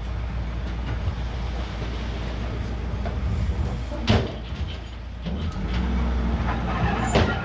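Komatsu D31PX bulldozer's diesel engine running steadily, easing off briefly about five seconds in and then picking up again. Two sharp metallic clanks, one about four seconds in and one near the end.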